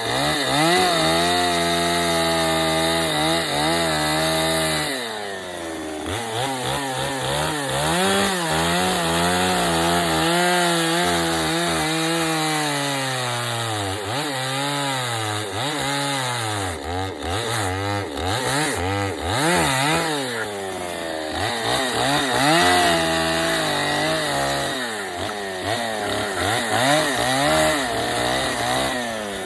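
Chainsaw cutting into a wooden block during bear carving, its engine pitch rising and falling again and again as the throttle is worked through the cuts, easing off near the end.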